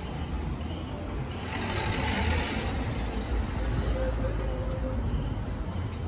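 Street noise: a steady low rumble, with a hissing swell about two seconds in.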